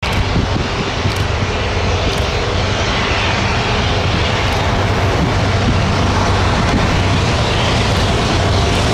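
Loud, steady engine rumble with a low hum, slowly growing louder.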